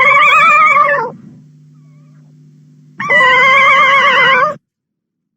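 Baby Godzilla film creature sound effect: two loud cries with a wavering pitch, each lasting about a second and a half, with a faint low hum between them.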